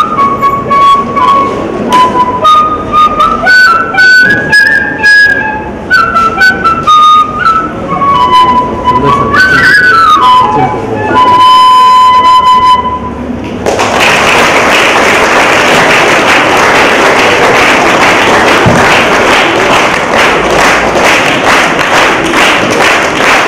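Bamboo flute played with the nose: a melody of short stepped notes, a quick slide down and one long held note. About fourteen seconds in the playing stops and an audience applauds.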